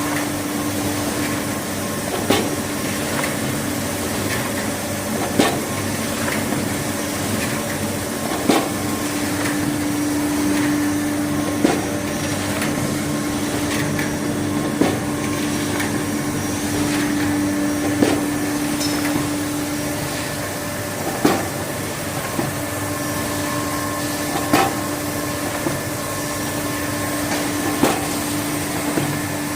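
Paper-roll band saw cutting machine running with a steady hum and a tone, and a sharp knock about every three seconds.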